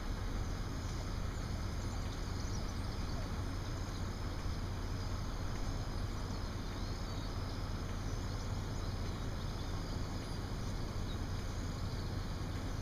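Steady low outdoor background rumble, with faint short high chirps scattered through it.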